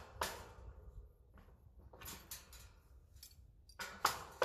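Several sharp metallic knocks in quick groups, the loudest about four seconds in, each leaving a short ring.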